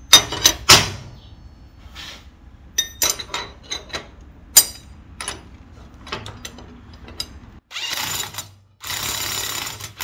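Steel parts clinking and clanking on a steel welding table as a bolt is set through stacked steel plates. Near the end a power drill with a socket extension runs, first briefly and then again for a couple of seconds, spinning the bolt down tight against a wrench.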